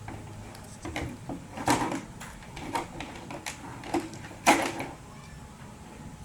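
Things being handled close to the microphone: a string of irregular clicks and knocks, the loudest about four and a half seconds in.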